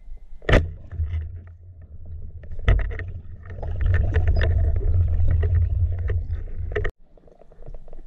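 Muffled underwater rumble of water moving over an action camera's waterproof housing as a diver swims, with a few sharp knocks against the housing. It cuts off abruptly about seven seconds in.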